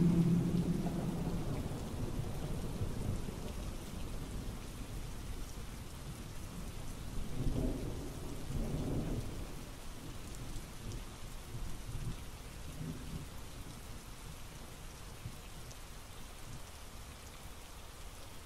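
Steady rain with thunder rumbling, the loudest low roll about halfway through, the whole slowly fading away.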